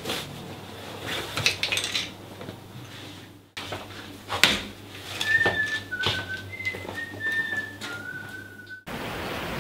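Cloth rustling with small clicks and clinks, then after a cut a person whistling a short tune of about six clear notes, the last one held longest, over a few light clicks.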